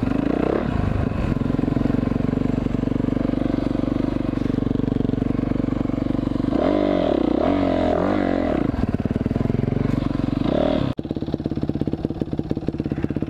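Yamaha dirt bike engine running steadily under way, then revving up and down unevenly for a couple of seconds. About eleven seconds in it drops suddenly to a lower, pulsing idle as the bike comes to a stop.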